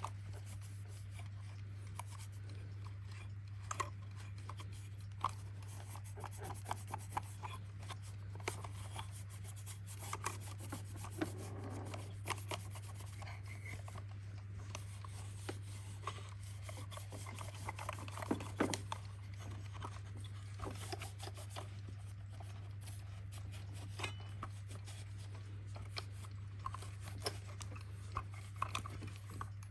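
Irregular light clicks and short rubbing or scraping sounds from a small mechanical alarm clock being handled and worked on, over a steady low hum.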